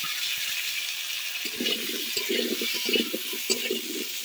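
Potato wedges sizzling in hot mustard oil in a karai (wok). From about a second and a half in, a metal spatula scrapes and clicks against the pan as the wedges are turned.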